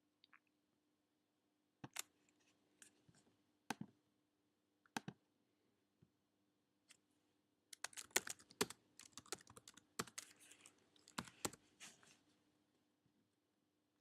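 Computer keyboard and mouse clicks: a few scattered single clicks, then about eight seconds in a quick run of keystrokes lasting some four seconds, as when typing a short file name.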